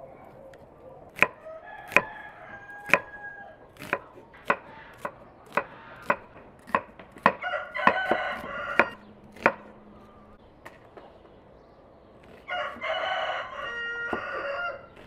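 Kitchen knife chopping onion on a wooden cutting board: about a dozen single sharp chops, spaced half a second to a second apart, stopping about two-thirds of the way through. A rooster crows twice, once in the middle and once near the end.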